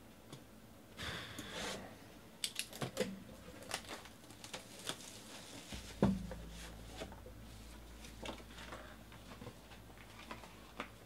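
Plastic shrink wrap torn off a sports card box and crinkled in the hand, with crackles and handling clicks. There is one louder thump about six seconds in, then light taps.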